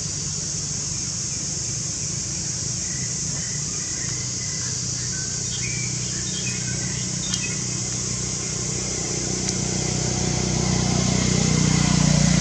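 Outdoor background with a steady high hiss, a few faint short chirps in the middle, and a motor vehicle's engine hum that grows louder over the last few seconds as it approaches.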